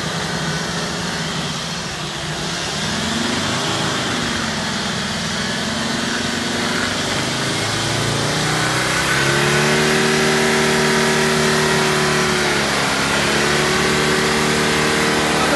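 Ford Troller 4x4's engine working under load as it tows stuck vehicles through mud, its revs swelling and dipping a few times, then climbing about halfway through and holding higher, with a brief dip near the end.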